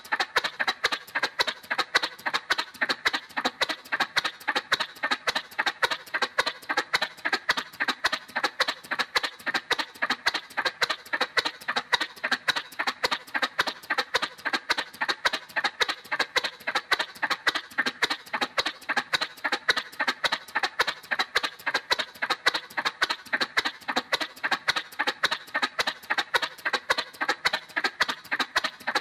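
Cartoon motorcycle sound effect: a steady, even putt-putt of an engine running at about four pulses a second, never changing speed.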